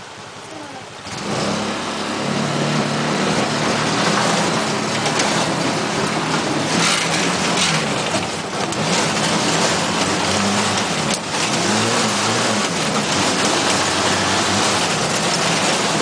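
Moto taxi's small engine, heard from inside the three-wheeler's open cab, getting much louder about a second in as it pulls away, then running hard with its pitch rising and falling several times as the driver works the throttle.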